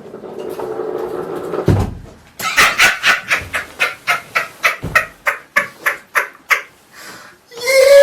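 A person laughing in a fast run of short bursts, about four a second, that gradually weaken, with a long held vocal cry starting near the end.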